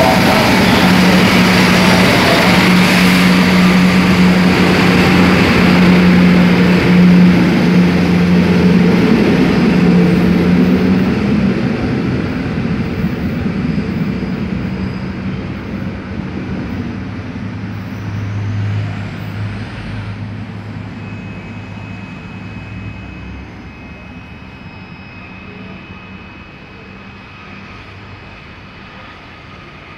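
Passenger train running past along the platform: a steady rumble with a low hum, loud for about the first ten seconds, then fading gradually as the train draws away.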